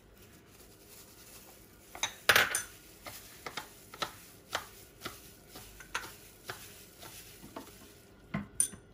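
A plastic-gloved hand tossing and squeezing blanched bean sprouts in a small plastic bowl. There is a loud clatter about two seconds in, then light taps and clicks about twice a second, with two more near the end.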